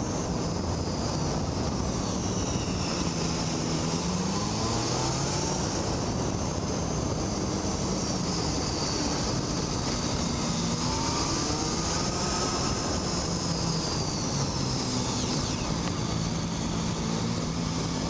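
Motorcycle engine running on the move, its pitch rising and falling repeatedly as the throttle opens and closes through a run of curves, over a steady rush of wind.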